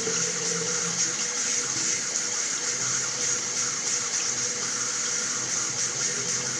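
Water running steadily from a tap in an even, unbroken rush.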